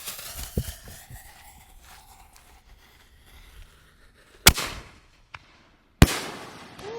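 A 5-inch consumer canister firework shell fired from a mortar tube. A dull thump of the lift charge comes about half a second in. About four seconds later there is a sharp, loud bang as the shell breaks, then a second bang a second and a half after, each trailing off in echo.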